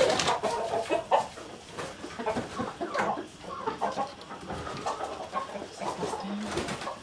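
Several chickens clucking in short, scattered calls as they come into the coop to roost for the night.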